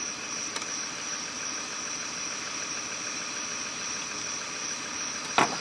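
Steady night chorus of crickets or other insects, holding a few unchanging high pitches over a low, even rumble. A sharp knock comes near the end.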